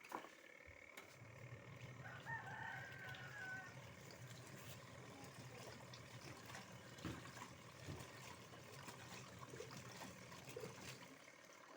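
A faint rooster crowing once, about two seconds in, over a steady low hum and a few small clicks.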